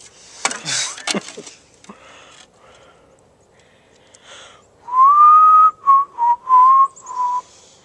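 A person whistling a short phrase: a rising note held briefly, then four short notes at about the same pitch, starting about five seconds in. A few brief rustling noises come near the start.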